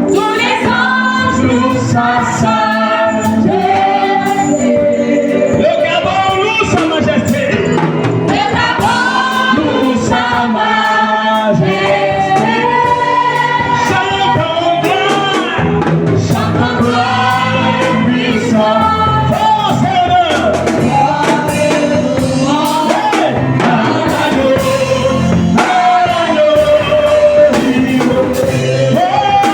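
Gospel music with a choir singing over a steady bass accompaniment.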